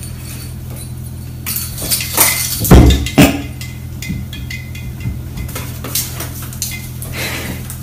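Light clicks and knocks from a cat batting a toy ball on a string against a window, then two heavy thumps about three seconds in as the cat drops off the sill. A steady low hum runs underneath.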